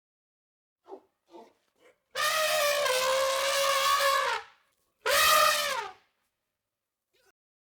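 Two drawn-out, clearly pitched animal calls: a long one of about two seconds with a slightly falling pitch, then a shorter one that rises and falls, after a few faint short sounds.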